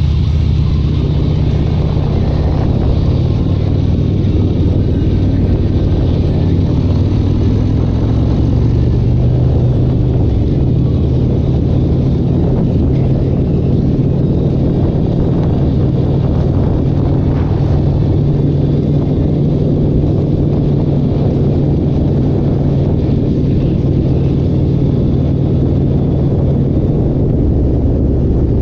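Loud car engine running steadily with a deep, low note, its pitch shifting slightly a couple of times.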